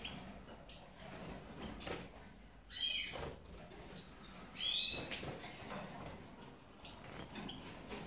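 Caged European goldfinches calling: two short chirps, one about three seconds in and a rising one about five seconds in, with a few faint clicks between.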